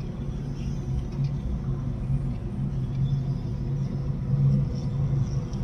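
Plastic wheels of a hand-pushed toy tractor and marble-laden trailer rolling over a wooden floor, a steady low rumble.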